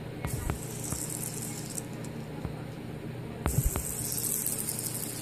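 Homemade fidget spinner built from a skateboard bearing being flicked into spin, twice: a few sharp clicks as it is flicked, then a high, fine rattling whir as it spins.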